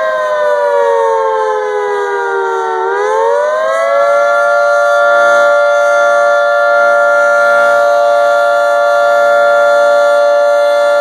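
24-horn outdoor tornado siren sounding loudly. Its pitch slides down over about three seconds, climbs back up within about a second, then holds a steady tone.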